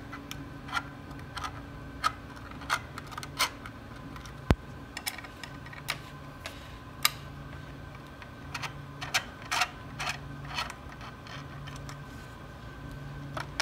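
Irregular sharp clicks and ticks of a hex driver working screws out of a 3D printer's plastic extruder cover and of the parts being handled, with one louder click about four and a half seconds in. A steady low hum runs underneath.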